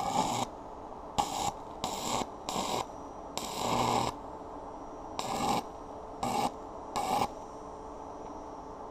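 Electric arc welder crackling in eight short bursts, the longest under a second, as stitch welds are laid on a steel tube frame.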